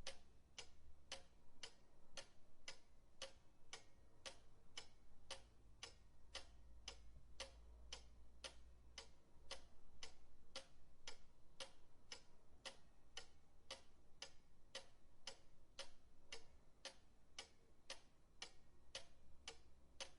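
Old pendulum clock ticking steadily, about two ticks a second.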